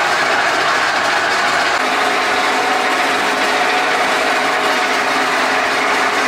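A loud, steady mechanical running noise with a faint constant hum, such as a motor or engine under way.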